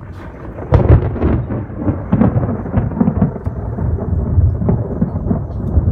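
Thunder: a sudden loud crack just under a second in, then a long, crackling rumble.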